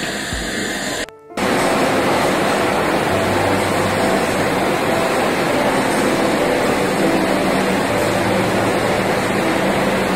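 Steady loud running noise of a vacuum frying line's machinery, a dense rush with a low hum under it, starting after a brief dip about a second in.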